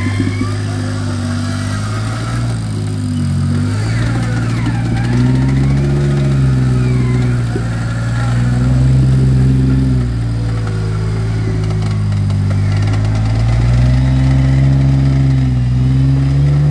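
Four-door Jeep Wrangler's engine revving up and easing off several times as it crawls up a steep, rocky dirt slope.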